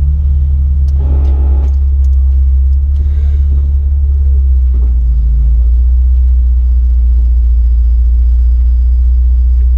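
Jeep Wrangler LJ engine running steadily at crawling pace, a loud, even low rumble with no big rise or fall in revs.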